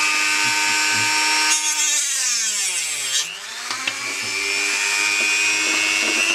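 Rotary tool with a small cutting disc running at high speed with a steady whine. Partway through, the disc grinds on metal spring strip in a rough burst of about a second and a half. The motor pitch drops steeply and then rises back to full speed.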